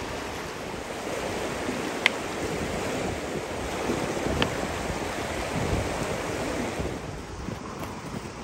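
Steady rushing of a river. There is a sharp click about two seconds in and a fainter one a couple of seconds later.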